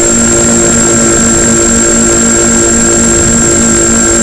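Twin electric motors and propellers of a Multiplex Twinstar 2 RC plane running steadily in cruise. The sound is an even drone that pulses a few times a second, with a thin high whine over it.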